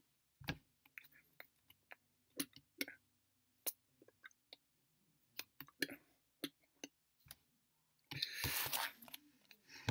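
Soft, scattered mouth clicks and lip smacks from a person gesturing silently, with a breathy rush lasting about a second just after eight seconds in.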